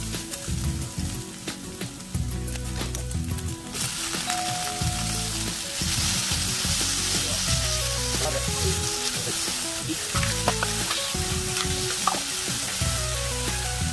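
Ham strips sizzling in oil in a nonstick frying pan, stirred with a spatula, with a few sharp clicks in the first few seconds. About four seconds in, julienned potato drained of its water goes into the pan, and the sizzle turns much louder and fuller as the potato is stir-fried with the ham. Soft background music plays throughout.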